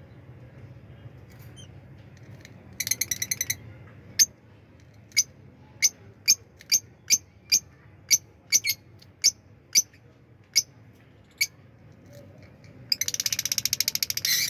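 Lutino Fischer's lovebirds calling: a short burst of rapid shrill chatter, then a string of about a dozen single sharp chirps spaced roughly half a second apart, and near the end a longer run of rapid chatter.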